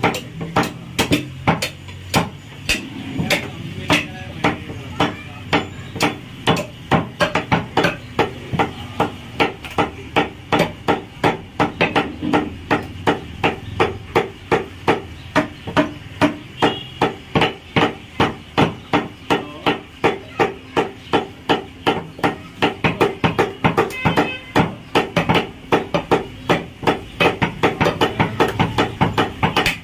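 Butcher's cleaver chopping goat meat and ribs on a wooden block: a rapid, steady run of strikes, about three a second.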